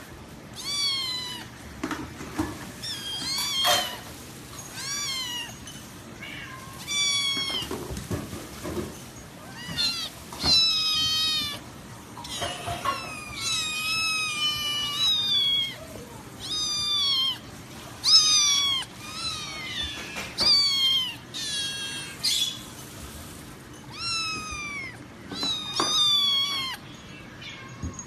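A cat meowing over and over: short, high-pitched meows, each falling in pitch, one every second or two.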